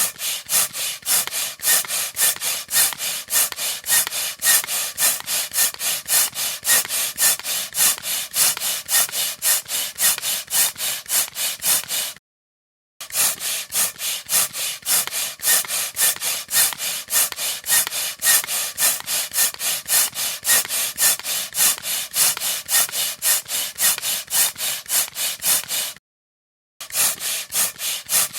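Air pump worked in rapid, even strokes, each one a hiss of air. It stops briefly twice and starts again.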